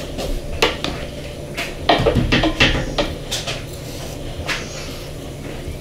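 Handling a plastic funnel and a sand-filled copper tube on a wooden workbench: a few light clicks and knocks, then a quick run of louder knocks and rattles about two seconds in.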